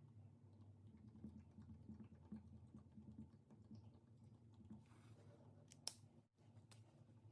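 Faint, soft clicking and crackling of slime being handled and worked, over a low hum, with one sharp click about six seconds in.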